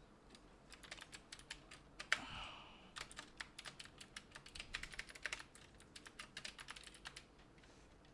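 Typing on a computer keyboard: a quick, uneven run of key clicks, fairly faint, with one sharper click about two seconds in. The typing eases off near the end.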